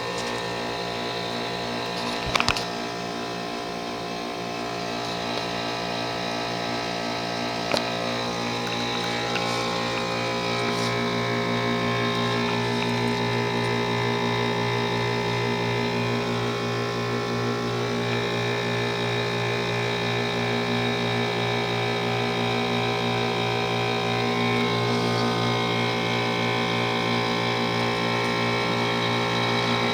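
2001 Trane XE1000 5-ton heat pump's scroll compressor running through a defrost cycle: a steady hum made of several layered tones. Two short clicks come in the first eight seconds.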